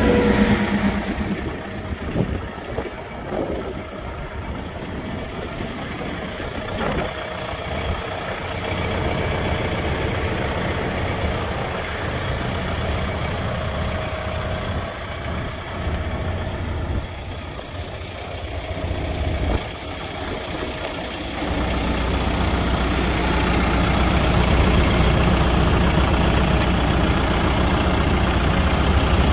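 Mahindra 105S tractor's turbocharged four-cylinder Doosan diesel idling steadily, growing louder about two-thirds of the way through. A few light knocks in the first several seconds.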